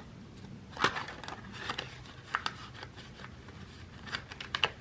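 Paper banknotes being handled and tucked into a cash wallet: scattered crinkles and sharp crackles of paper, with a cluster of them near the end.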